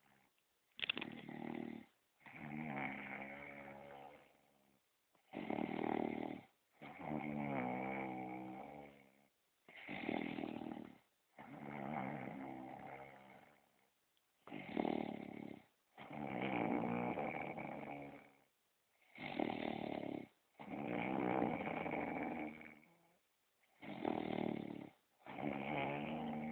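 Steady, rhythmic snoring. Each breath is a short snore followed by a longer one that fades out, repeating about every four and a half seconds, six times over.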